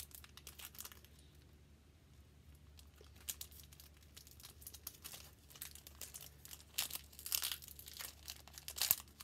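Foil wrapper of a Pokémon booster pack being torn open and crinkled by hand, in irregular crackly rustles that are sparse at first and grow busier in the second half.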